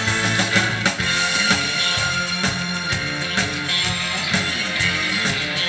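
A pop band plays the instrumental intro to a song: drum kit and guitar over a steady beat.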